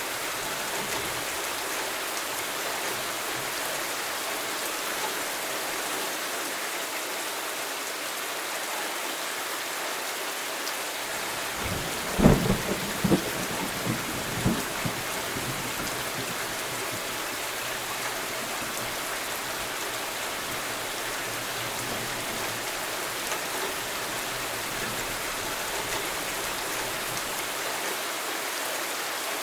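Thunderstorm: steady rain throughout, with a sharp thunderclap about twelve seconds in, followed by a few more cracks over the next few seconds and a low rumble that fades out.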